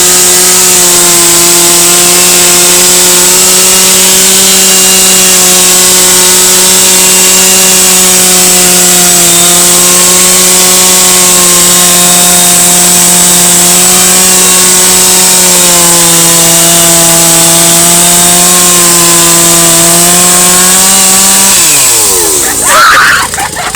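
A two-stroke chainsaw held at full throttle, running steadily at high revs with slight dips in pitch. Near the end the revs fall away, followed by a brief loud burst of noise.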